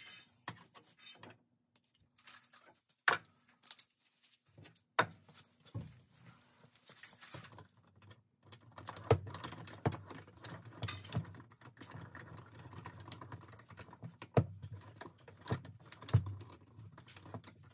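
Plumbing tools and parts being handled: scattered sharp clicks and knocks, with a low steady hum joining about eight seconds in.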